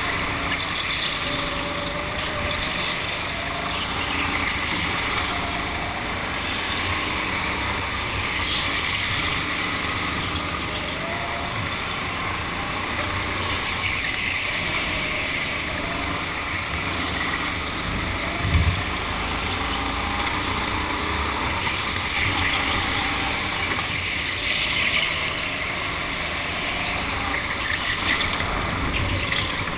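Go-kart running at speed, its motor pitch rising and falling with the throttle under a steady rush of tyre and wind noise. A single thump about two-thirds of the way through.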